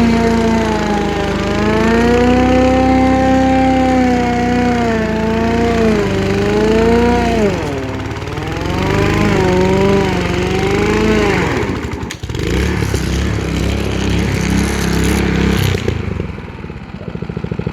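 Rover Pro Cut 750 self-propelled lawn mower's petrol engine running fast, its governor spring adjusted for extra revs. The revs swing up and down as it works, then drop sharply about two-thirds of the way through to a lower, rougher running note.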